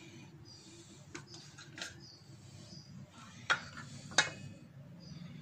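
Several light clinks of kitchenware on a steel tray, the two sharpest about three and a half and four seconds in, over a low steady hum.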